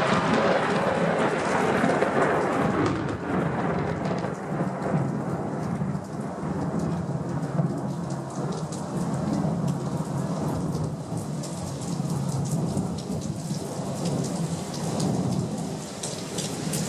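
Heavy rain pouring down steadily under a low rumble of thunder; the rumble is loudest in the first few seconds and then eases off.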